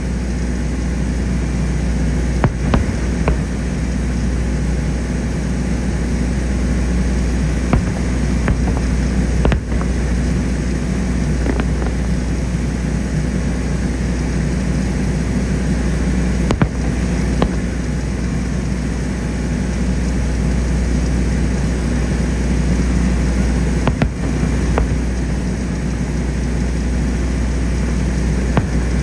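Aerial firework shells bursting at a distance: a continuous rolling rumble of booms, broken by a few sharp cracks.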